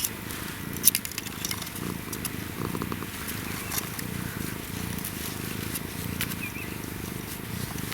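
African wildcat kitten purring steadily, a rapid pulsing vibrato. A few sharp clicks fall over it, the loudest about a second in.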